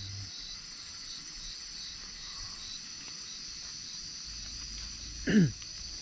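Steady high chorus of night insects, crickets, running throughout. About five seconds in comes a short loud call that slides down in pitch.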